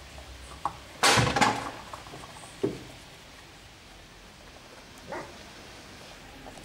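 Doberman puppies at play: a loud, rough bark about a second in, followed by a couple of short, sharp yaps.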